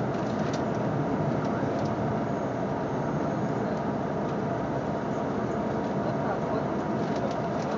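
Steady city street noise: traffic running by in a continuous wash, with people's voices mixed in.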